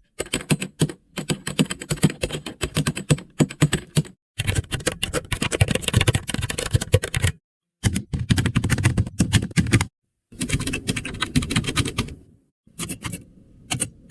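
AI-generated sound effect of typing on a computer keyboard: rapid trains of key clicks in about six bursts, each cut off by a short dead silence. It sounds like an old keyboard.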